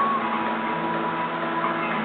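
Faint background melody of held notes that step in pitch over steady room noise.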